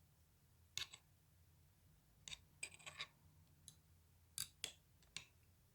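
Near silence with a low hum and scattered faint, sharp clicks and ticks, a few of them in quick clusters.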